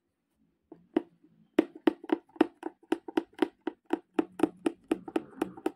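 Oriental punch needle pushed in and out of fabric stretched tight in an embroidery hoop while filling a shape, each stroke a sharp tap. After a couple of single taps, a steady run of about four taps a second starts about a second and a half in.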